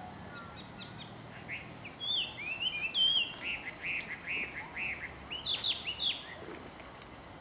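A songbird singing a string of high chirps and warbled notes for about four seconds, ending in a few quick sharp notes.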